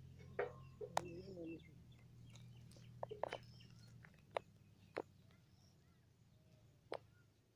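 Sparse short, sharp bird chirps at irregular intervals, over a low steady hum that fades away about four seconds in.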